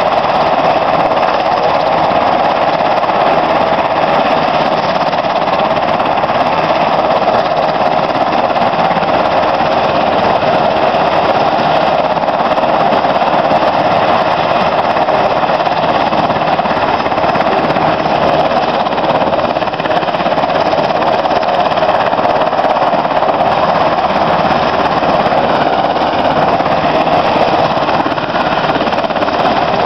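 U.S. Coast Guard Jayhawk helicopter running on the ground, its twin turbine engines and turning rotors making a loud, steady noise.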